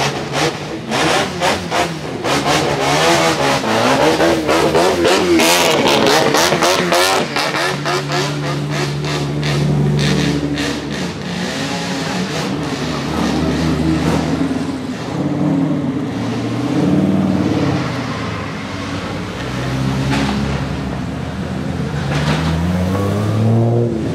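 Tuned drift car engines. For the first seven seconds or so there is a rapid run of crackling pops over wavering revs. After that an engine blips its throttle in short repeated revs, with one long rise in pitch near the end.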